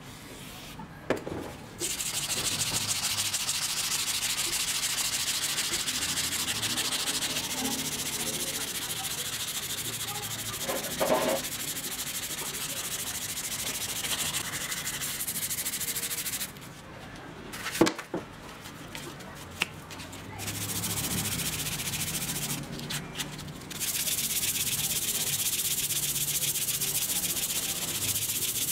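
Steel axe blade clamped in a vise being hand-sanded, with rapid back-and-forth rubbing strokes making a steady hiss. About two-thirds of the way through the rubbing breaks off for a few seconds, with a single sharp knock, then starts again.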